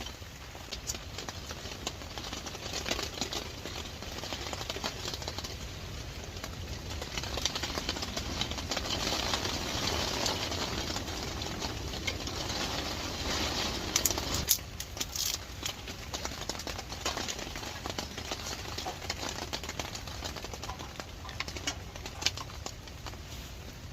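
Steady rain and wind from a storm, swelling in the middle, with a few sharp knocks just past halfway.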